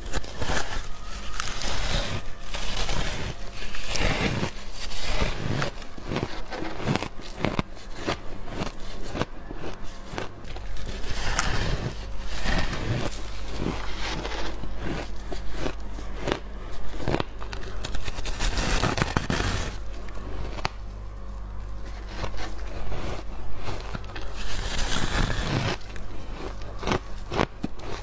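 Refrozen shaved ice crunching as it is bitten off a slab and chewed: a fast, irregular run of crisp cracks and crackles, coming in spells with short pauses between.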